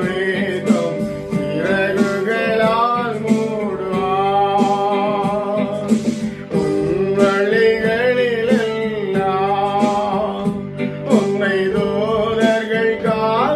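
A man singing a worship song over guitar accompaniment, the melody carried in long, gliding sung lines.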